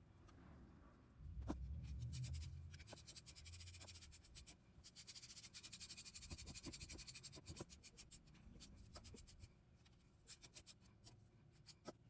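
Socket ratchet clicking faintly in quick runs as the spool valve assembly's bolts are run down, with a few light handling knocks.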